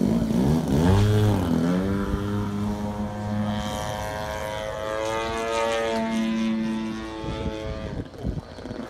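Propeller-driven GP-123 engine of a 103-inch RC aerobatic plane taking off. Its pitch swings about a second in as the throttle comes up for the takeoff run, then the engine drones steadily through the climb, shifting with throttle and growing fainter near the end as the plane gets farther away.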